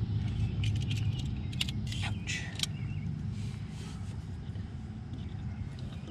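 Light metallic clicks and scrapes from pliers being handled at the tie rod end, over a steady low rumble. The clicks fall in the first few seconds, and the rumble carries on after them.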